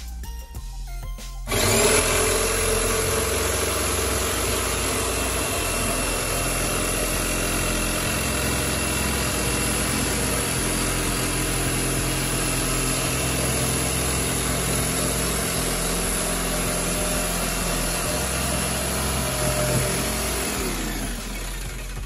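Corded jigsaw cutting through a wooden cabinet floor: it starts suddenly about one and a half seconds in, runs steadily, and winds down near the end. A hip-hop beat plays underneath.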